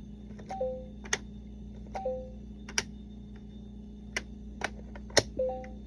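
LeapFrog Fridge Words magnetic word builder: plastic letter pieces clicking sharply against the toy's slots as the letters are changed, about seven irregular clicks. Three times the toy gives a short two-note electronic blip, high then lower.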